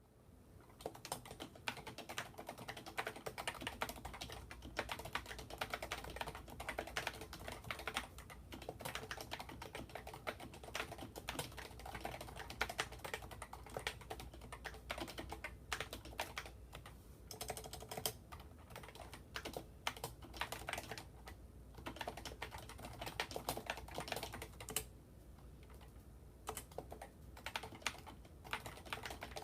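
Typing on a Topre Realforce 104UK Hi-Pro keyboard, whose electrostatic capacitive switches are rubber domes over conical springs: a fast, uneven run of keystrokes with a few brief pauses.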